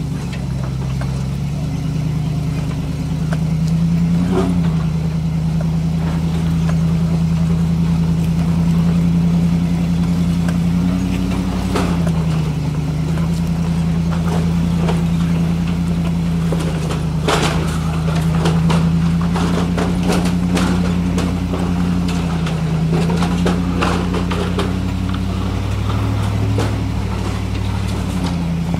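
Land Rover 4x4's engine running steadily at low revs as it crawls up a rocky dirt trail, its pitch dipping and rising briefly a few times. Short clicks and knocks from rocks under the tyres come in, mostly in the second half.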